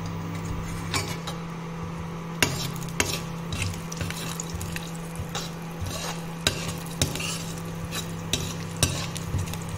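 Steel spoon stirring garlic cloves and cumin seeds in hot oil in a non-stick kadai, clicking and scraping against the pan at irregular intervals over a light sizzle. A steady low electrical hum, from the induction cooktop, runs underneath.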